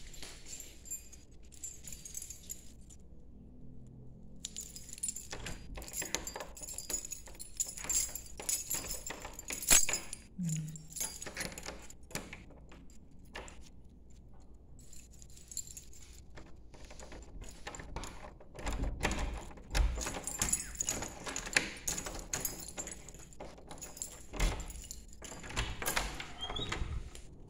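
Keys jangling, with metal clicks and rattles, as a wooden door's deadbolt and sliding barrel bolt are unlocked and the door is opened. The jingling comes in two long spells.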